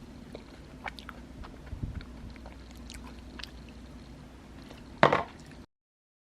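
A person chewing a microwave almond-flour brownie, with small scattered clicks and mouth sounds, then a louder, sharper sound about five seconds in. The sound cuts off shortly before the end.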